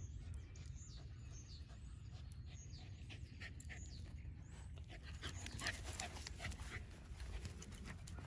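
Miniature pinscher sniffing at the ground and breathing close to the microphone, with a run of short crackly sniffs about five to seven seconds in.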